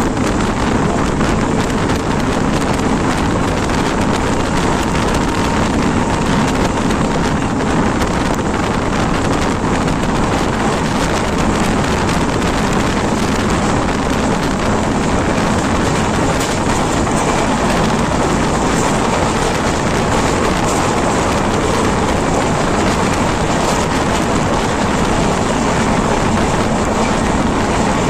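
Express passenger train running at speed, heard from an open coach doorway: steady wheel-on-rail running noise mixed with wind buffeting the microphone.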